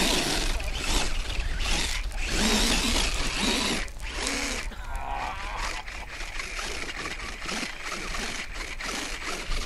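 Motor and drivetrain of a radio-controlled off-road crawler working under load as it climbs a steep gravel slope, tyres scrabbling on loose stones. The sound is louder for the first four seconds or so, then eases off.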